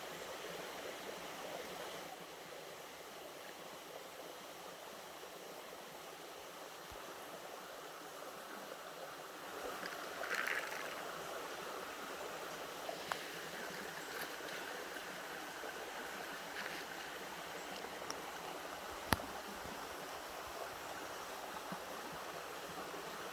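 Creek water running steadily, with a brief louder rush about halfway through and a few sharp clicks, the loudest one near the end.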